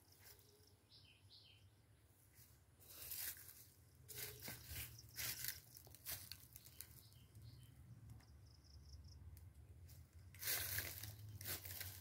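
Footsteps crunching on dry fallen leaves and brushing through garden plants, in a few short rustling bursts, loudest near the end, over a low steady rumble.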